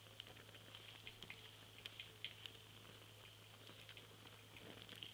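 Near silence: faint room tone with a low steady hum and scattered light clicks and ticks, a few of them a little louder about two seconds in.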